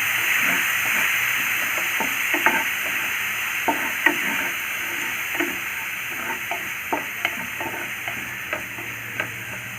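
Onion and coconut paste sizzling in hot oil in a pan as it is stirred, with irregular clicks and scrapes of the spoon against the pan. The sizzle slowly dies down.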